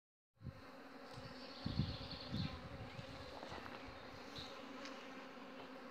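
A mass of honeybees buzzing on and around a comb frame lifted out of an open hive, a steady low hum. A couple of low bumps stand out about two seconds in.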